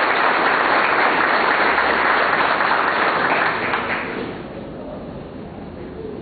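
An audience applauding, a dense patter of clapping that dies away about four seconds in.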